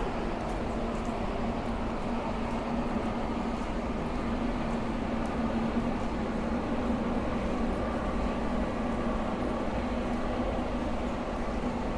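Steady city street noise with a constant low hum running underneath it.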